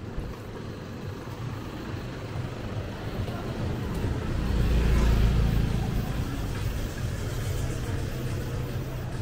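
Street traffic: engines running steadily, with a vehicle passing close and growing loudest about halfway through before easing back to a steady engine hum.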